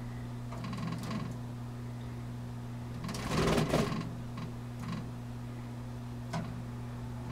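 A budgerigar moving about on its wooden perch in a wire cage, making soft rustles and a few light clicks; the loudest rustle comes about three seconds in. A steady low electrical hum runs underneath.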